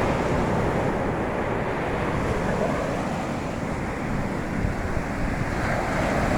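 Sea waves washing onto the beach in a steady rush of surf, with wind buffeting the microphone.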